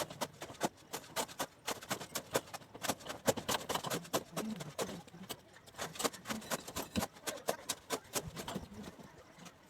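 Rapid, irregular clicks and light taps of steel reinforcing bars being tied with binding wire, several a second.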